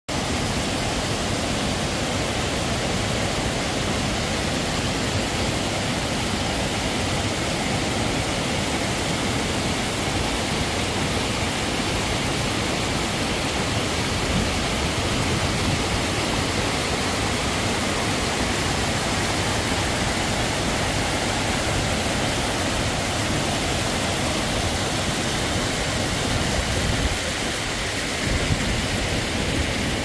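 Steall Waterfall's tall cascade over stepped rock, a steady, full rush of falling water.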